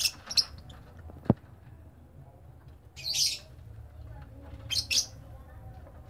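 Caged lovebirds giving short, high-pitched chirps: a burst at the start, another about three seconds in and a double call near five seconds. A single sharp click sounds about a second in.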